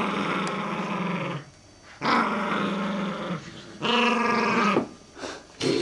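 Shetland sheepdog play-growling during a play fight, in three long growls of about a second each with short pauses between.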